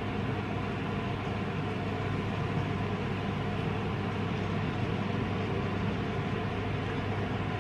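Steady low hum with a hiss over it, unchanging throughout, with no distinct eating or utensil sounds standing out.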